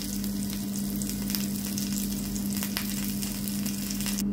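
A bagel and tomato chunks frying in a non-stick pan, a steady sizzling crackle that cuts off suddenly near the end, over a steady low hum.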